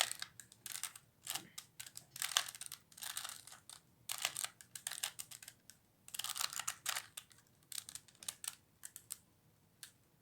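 3x3x3 Rubik's Cube being turned rapidly by hand, the plastic layers clicking and clacking in quick bursts with short pauses between, as a move sequence is run through. A sharper, louder knock comes at the very end.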